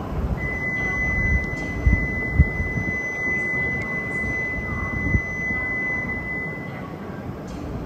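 A steady high-pitched electronic tone sounds on the platform for about six seconds and then stops, over the low rumble of an E5 series Shinkansen standing at the platform before departure; it is the kind of warning tone given before the train leaves.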